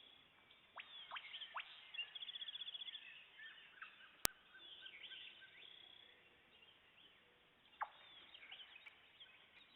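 Faint mixed birdsong from several woodland birds: quick falling whistled notes and a rapid trill about two seconds in, with one sharp click a little after four seconds.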